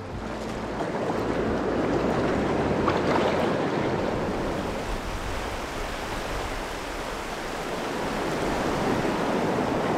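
Fast river current rushing through a rocky riffle, a steady wash of water heard close up from midstream.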